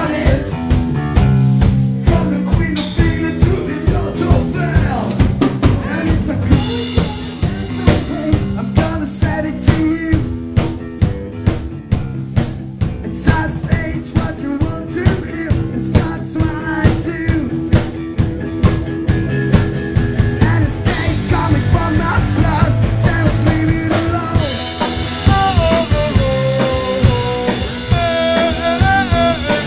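Rock band playing: drum kit, electric guitar and bass guitar, with dense rapid drum hits through the middle and a wavering melodic lead line near the end.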